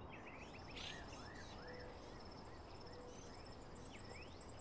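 Faint outdoor ambience of small birds chirping: a run of short arched notes about two a second among other quick rising and falling chirps, with a thin, high, rapidly pulsing trill.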